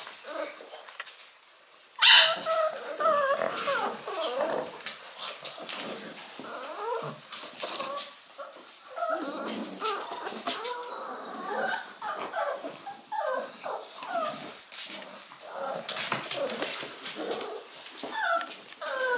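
Six-week-old Shar-Pei puppies whining and whimpering in short, wavering high calls, over and over, starting suddenly about two seconds in after a quiet start.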